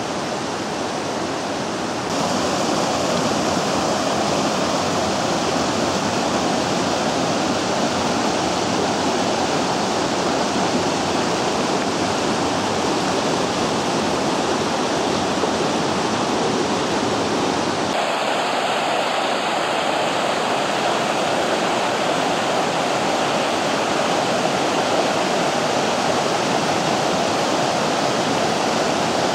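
The Vydra river rushing over rocks: a loud, steady roar of fast mountain water. It steps up in level about two seconds in and abruptly changes in tone near eighteen seconds.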